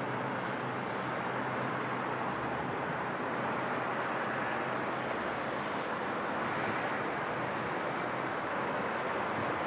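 Steady distant city traffic noise, an even rush with a faint low hum and no bangs.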